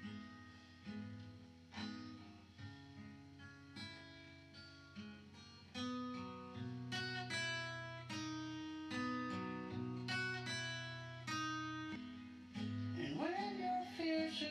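Cutaway acoustic guitar playing an instrumental passage of chords, struck about once a second at first and more often later on. A singing voice comes in near the end.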